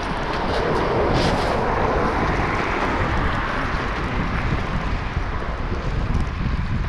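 Wind buffeting the microphone of a camera on a moving bicycle, with a car overtaking on the wet road: the hiss of its tyres on wet tarmac swells and then fades over a few seconds.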